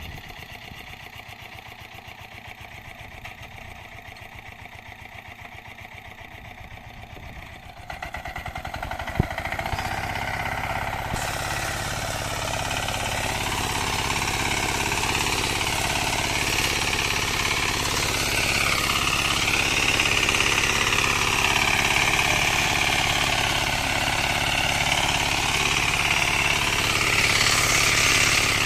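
Zubr walk-behind tractor's engine running, quieter at first, then louder from about eight seconds in, with its pitch wavering up and down as the rotary tiller works through ploughed soil under load.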